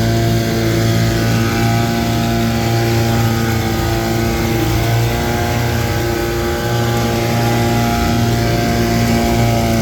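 1964 Johnson 3 hp twin-cylinder two-stroke outboard motor running steadily at a constant speed.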